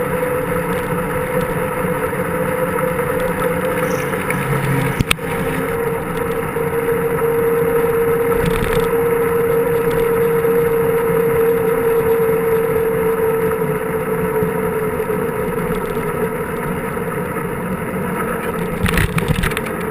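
Wind and rolling noise from a mountain bike in motion, picked up by a camera mounted on the bike, with a steady hum underneath and a single sharp click about five seconds in.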